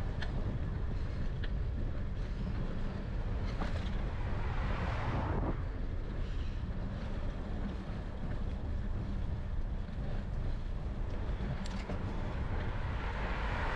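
Wind rumbling on a bike-mounted camera's microphone while riding, with the tyre noise of passing cars swelling and fading about five seconds in and again near the end.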